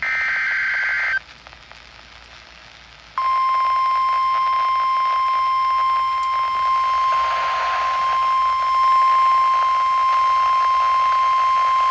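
NOAA Weather Radio alert sequence heard over a radio receiver: about a second of the rapid buzzing SAME digital data burst, a short hissy pause, then the 1050 Hz warning alarm tone held steady for about nine seconds. The tone marks the start of a new emergency warning broadcast.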